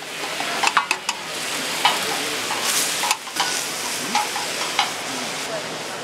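Food sizzling on a cast-iron pot-lid griddle while a spatula stirs and scrapes through it, with sharp clicks of the utensil against the metal.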